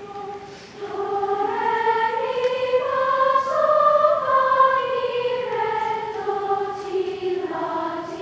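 Choir singing a slow phrase of long held notes. It grows louder about a second in, and the melody rises to a peak near the middle and then falls back.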